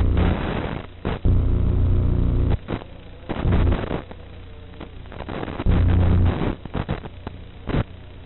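Buzz and hiss from an analog 5.8 GHz FPV video receiver's audio channel, with no microphone feeding it. Loud low buzzing comes in blocks of a second or so and alternates with patches of static hiss and crackle as the video link from the racing drone fades in and out.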